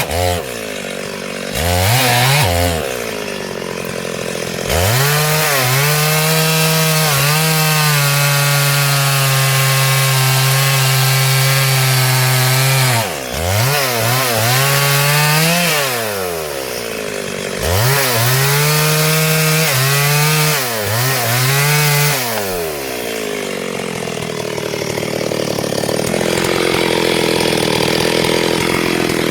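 Two-stroke chainsaw cutting wood: a couple of short throttle blips, then long stretches at full revs with the engine note sagging and recovering under load, dropping back briefly between cuts. In the last few seconds the sound turns to a rougher, less even noise.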